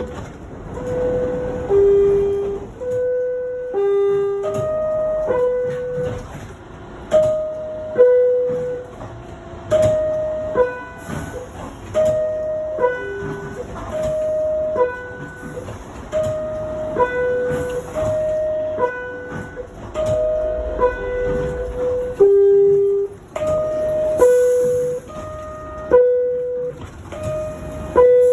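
NYC subway R62A car door chime: an electronic two-note chime, a higher note then a lower one, repeated over and over about every two seconds, sometimes with the second note dropping lower. Train rumble runs underneath.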